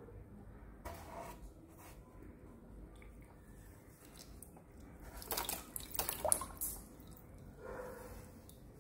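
Water splashing and dripping as a hand stirs through a shallow plastic tub of fish, with a cluster of louder splashes about five to seven seconds in.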